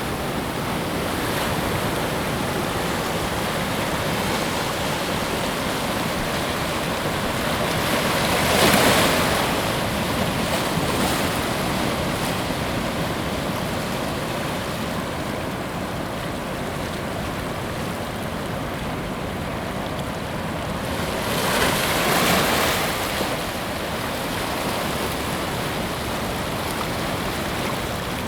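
Ocean waves breaking on a beach: a steady wash of surf, with two waves breaking louder, about nine seconds in and again about twenty-two seconds in.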